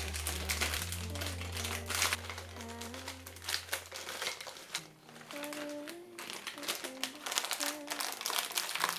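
Plastic bag of frozen mixed berries crinkling as it is handled and tipped, the frozen berries clattering into a plastic blender cup, with background music.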